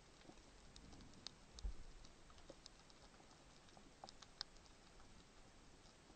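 Faint underwater crackle: scattered sharp clicks and ticks at irregular intervals over a quiet hiss, with one dull low thump about a second and a half in.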